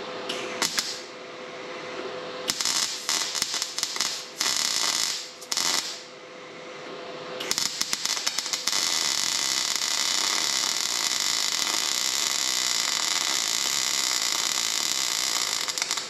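MIG welder arc crackling and hissing as a broken weld under a steel tractor step is re-welded. First a brief burst, then a few seconds of short stop-start bursts, then one steady run of about eight seconds.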